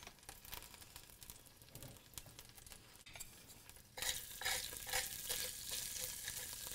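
Cumin seeds frying in hot olive oil in a pan. A faint crackle at first, then a sudden louder sizzle with scattered sharp crackles from about four seconds in.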